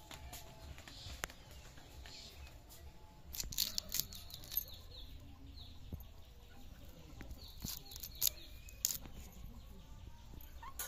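Small fish being scaled against a fixed upright cutting blade: clusters of sharp scraping clicks, about three seconds in and again near eight seconds, with short high chirps in the background.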